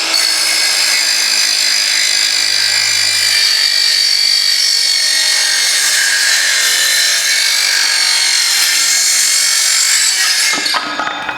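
Circular saw with a Falkenwald Multi Material blade cutting through a staple-filled wooden board, running at full speed with a steady high whine and not slowing as it passes through a staple. The whine falls away as the saw winds down near the end.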